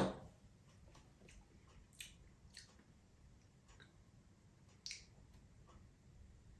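A whisky glass set down on a wooden table with one sharp clunk at the start, then faint lip smacks and mouth clicks, a few seconds apart, of someone tasting whisky.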